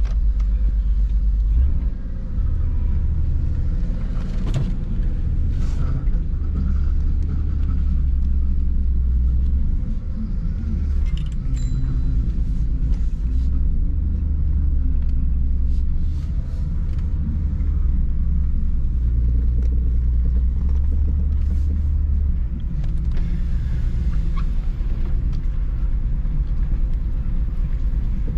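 A manual BMW E46 being driven: a steady, loud low engine drone with road noise that eases off briefly a few times as the car pulls away and goes through the gears. The engine has a misfire, which the owner calls an easy fix.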